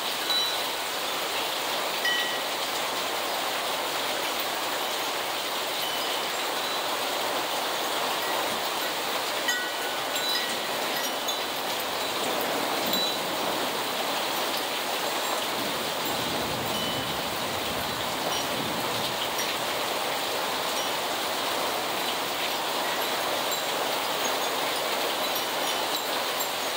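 Heavy rain falling steadily on a yard and wet street, an even hiss. Short high ringing tones come and go at a few fixed pitches, and a low rumble rises and fades about midway.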